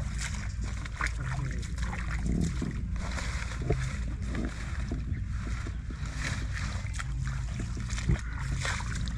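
Shallow water sloshing and splashing irregularly as someone wades and works through it by hand, over a steady low rumble.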